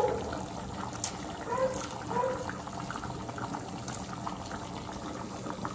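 Pot of yam and plantain porridge bubbling at a simmer, a steady soft bubbling, with a few small crinkles from a seasoning-cube wrapper being unwrapped.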